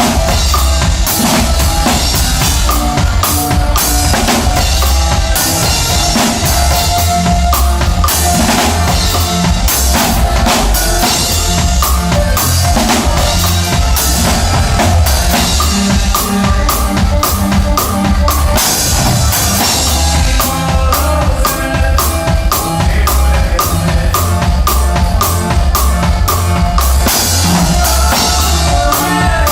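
Live conjunto band playing at a steady, loud level: a drum kit keeps a driving beat of bass drum and snare hits under moving bass notes and a sustained melody line.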